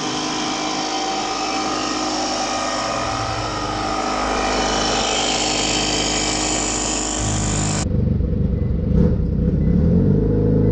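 Portable air compressor running with a steady mechanical buzz. About eight seconds in it gives way to a deeper engine-like rumble.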